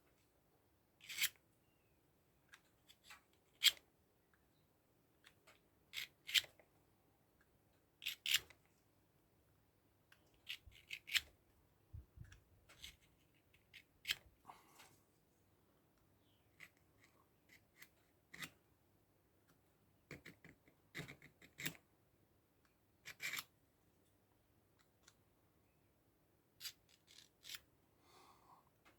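Victorinox pocketknife blade drawn across a sharpener in short scraping passes to touch up a worn edge. The strokes come singly or in quick pairs, a second or two apart, with quiet between.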